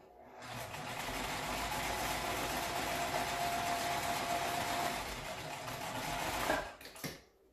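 Electric sewing machine running steadily for about six seconds as it stitches through folded fabric layers, then stopping; a couple of short clicks follow near the end.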